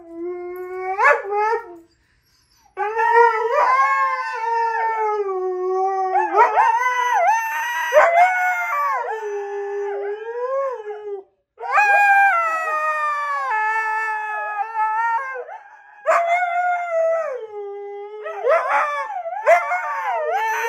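Siberian huskies howling: long wavering howls that rise and fall in pitch, at times two voices at once, breaking off briefly about two seconds in and again just past the middle.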